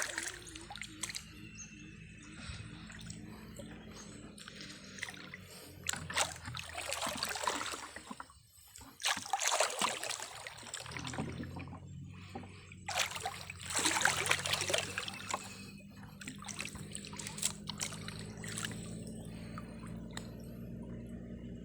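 Canal water sloshing and trickling as a gill net is hauled up by hand, in three loud surges about a third, half and two-thirds of the way through. A steady low hum runs beneath.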